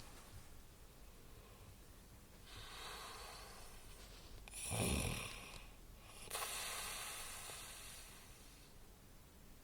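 Snoring: a breathy intake, then a loud low snore about five seconds in, followed by a long breathy exhale that fades away.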